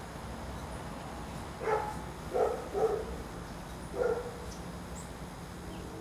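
A dog barking: four short barks, the middle two close together.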